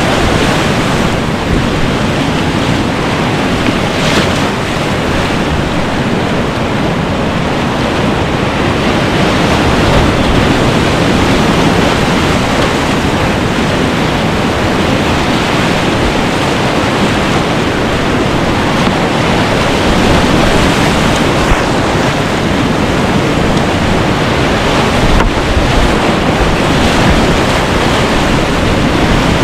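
Whitewater rapids rushing loudly and steadily around a kayak, heard up close from the boat in the middle of the run, with the river running at about 1000 cfs.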